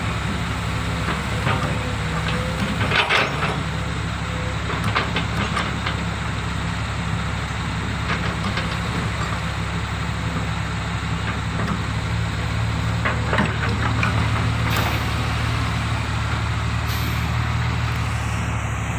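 Heavy-equipment diesel engine running steadily at a coal-loading site, with a few short knocks and clanks scattered through.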